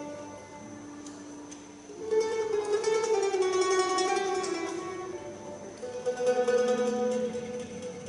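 Mandolin and guitar playing a Balkan folk tune, with a double bass bowed beneath them. Long held notes swell louder about two seconds in.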